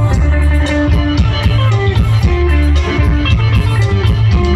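Loud live music from a Thai lam sing band through the concert sound system: an instrumental passage with heavy bass and no singing.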